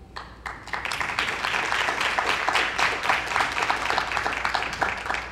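A group of people applauding: a few scattered claps, then a full round of clapping from about a second in that dies away just at the end.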